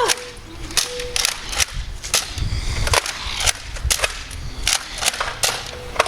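Gunfire: a rapid, irregular string of fifteen or so sharp shots.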